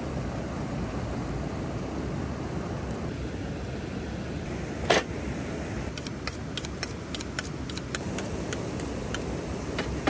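A kitchen knife being honed on a steel: about a dozen quick, light strokes, roughly three a second, starting about six seconds in. A single loud knock comes about a second before them, and a steady rushing noise runs underneath.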